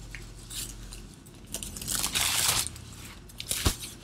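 Rustling swishes of a softbox's white fabric diffuser being unfolded and spread out by hand, the biggest swish about two seconds in, with one sharp click near the end.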